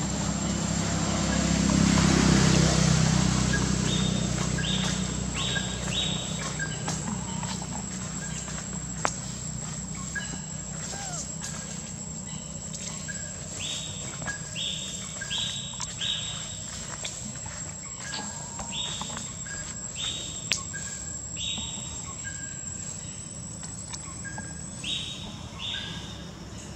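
Outdoor ambience: a bird calling repeatedly in short runs of three or four quick high notes, over a steady high-pitched insect drone that stops near the end. A low rumble swells a couple of seconds in, and there are a few sharp clicks.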